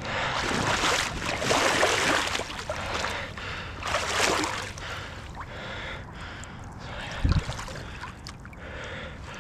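Water sloshing and splashing in uneven surges as someone moves through a pond, with a dull low thump about seven seconds in.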